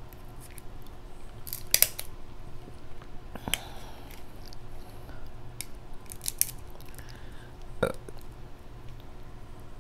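King crab leg shell being cut and cracked with kitchen scissors: a scattered series of sharp snips, clicks and cracks, one of the strongest near the end.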